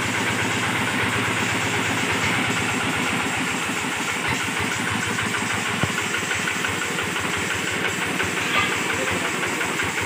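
Single-cylinder diesel engine of a two-wheel hand tractor converted into a rice harvester, running steadily with a fast, even knocking beat.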